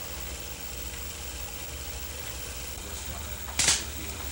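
Steady low hum, with a single sharp click about three and a half seconds in.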